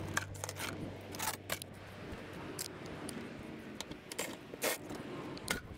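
Scattered light clicks and knocks as plastic underbody panels and their fasteners are worked loose by hand and with a cordless ratchet under a car.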